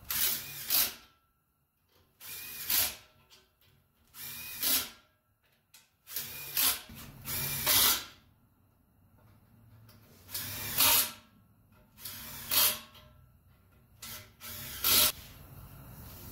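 A cordless drill runs in short bursts, about seven times, turning the bolts of a brake backing plate on a rear axle housing.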